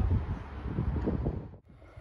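Wind buffeting the microphone, a gusty low rumble that drops away suddenly about one and a half seconds in.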